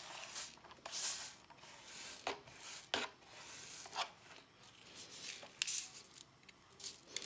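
A paint-edger sponge brushed in short strokes over a rhinestone template, sweeping loose rhinestones across it: faint, irregular rubbing swishes with a few sharp clicks.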